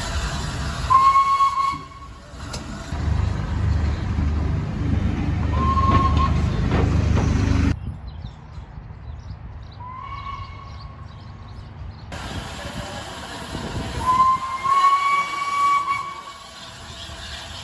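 Steam locomotive whistle blowing short blasts about a second in, around six seconds and around ten seconds, then a long blast near the end, each a single clear tone that lifts slightly as it starts. Between the early blasts the train rumbles low and heavily.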